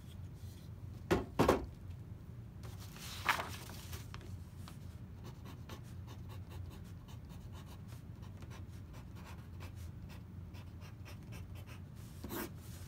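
Two knocks about a second in as the old wooden saw handle is set down on the bench, then a pencil scratching out words on paper in many short strokes.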